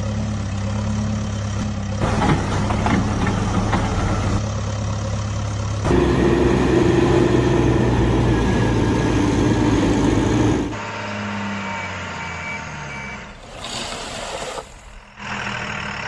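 Heavy diesel engines of a backhoe loader and a truck running, with a louder stretch in the middle that cuts off suddenly. A short run of reversing beeps follows.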